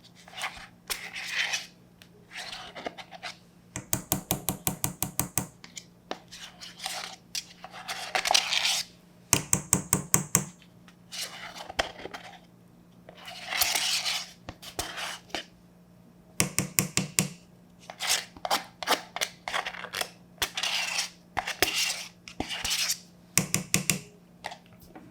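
A utensil scraping sour cream out of its tub into a stand-mixer bowl, in irregular scrapes, with several short runs of rapid tapping against the container.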